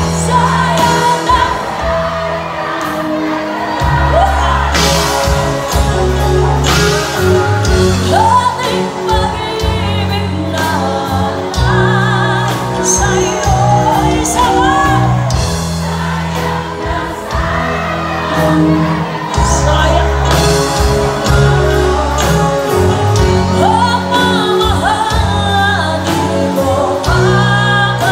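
Live band playing loudly: a woman sings lead with backing singers, over electric guitar, drums, keyboards and a steady low bass line.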